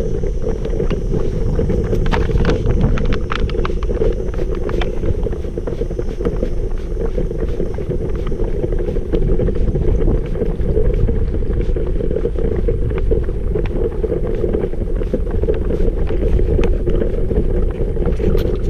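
Loaded three-wheeled jogging stroller, used as a cargo cart, rolling over rough asphalt: a steady rumble from the wheels with constant small rattles and clicks from the frame and load. Wind buffets the microphone.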